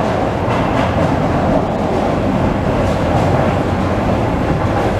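Carmelit underground funicular car approaching through the tunnel: a steady, loud rumble from the rails and cable, with a few faint clicks.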